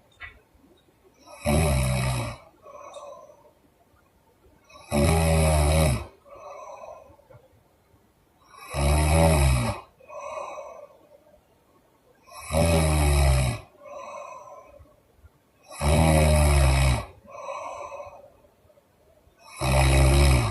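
A woman snoring loudly in deep sleep: six heavy snores, about one every three and a half to four seconds, each followed about a second later by a softer breath blown out through the mouth.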